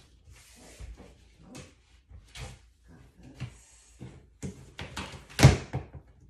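Large cardboard shipping box being handled and pulled open: scattered scrapes, rustles and knocks of cardboard, with one loud thump about five and a half seconds in.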